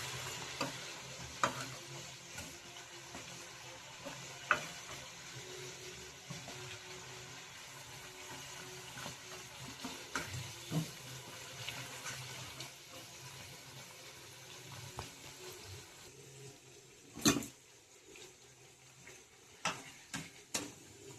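Food sizzling in a hot pan, the hiss slowly dying down, with occasional sharp knocks of a utensil against the pan, the loudest near the end.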